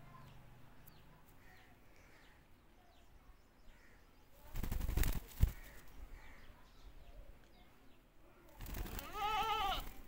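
Near the end, a single bleat-like animal call with a wavering pitch, about a second long. About halfway through comes a second-long rush of rough noise ending in a sharp knock. Faint bird chirps sound in between.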